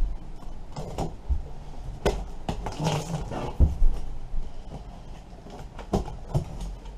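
A blade slitting packing tape on a large cardboard box, with irregular scraping, tape tearing and knocks of hands against the cardboard.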